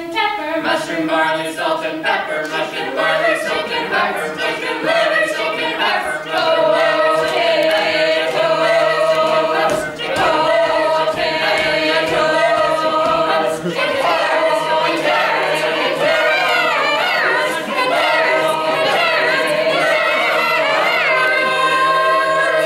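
A chorus of men's and women's voices singing together, with a steady low note held underneath.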